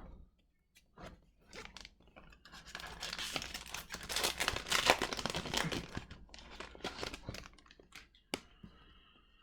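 Foil trading-card pack wrapper being handled, crinkling and tearing, with a dense spell of crackle in the middle and a few clicks before and after.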